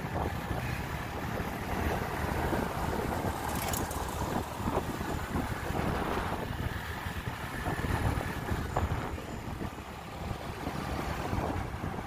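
Wind buffeting the microphone over the steady engine and road noise of a moving vehicle.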